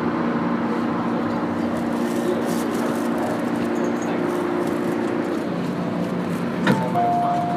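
MTR modernised M-Train (car A205) running on the Kwun Tong line, heard from inside the car: steady motor hum with track noise, the hum dropping to a lower pitch about five and a half seconds in. Near the end comes a sharp click, followed by steady electronic tones.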